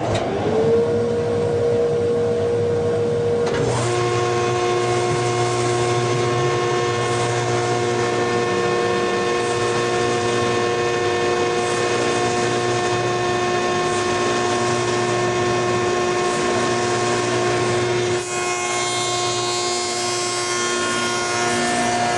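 A dust collector and a wood shaper with a 1.25-inch roundover cutter on a solid spindle start one after the other. Each spins up to a steady whine, and they run on together. About eighteen seconds in the sound changes as the cutter takes a pass through the wood.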